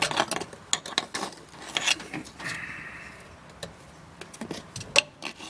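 Irregular clicks and knocks of the brake master cylinder cover being handled and refitted, with a short scrape about halfway through.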